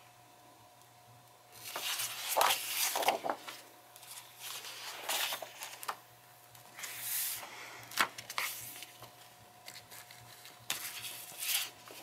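Paper pages of a coloring book rustling and sliding over a cutting mat as a hand moves and flattens them, in several short bursts, with a sharp tap about eight seconds in.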